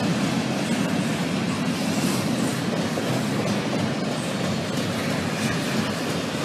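Double-stack intermodal freight cars rolling past, a steady noise of steel wheels running on the rails.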